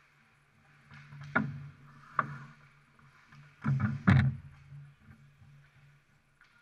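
Ice hockey play around the net: sharp clacks and thuds of sticks, puck and players against the boards, four in all, the last two loudest and close together, over a low steady arena hum.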